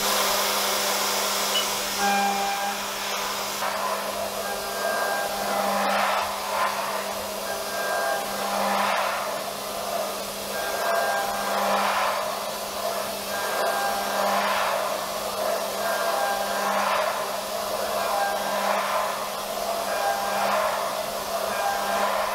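Haas VF2SS CNC mill cutting with an end mill under air blast: a steady hiss of compressed air over the spindle's steady whine. The cut swells and eases in repeated passes about every two to three seconds.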